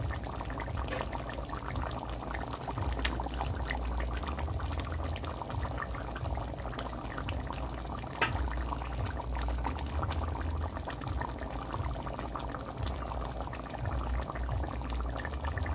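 Pot of chicken-foot and shrimp curry with potatoes boiling, a steady bubbling and popping of the thick sauce.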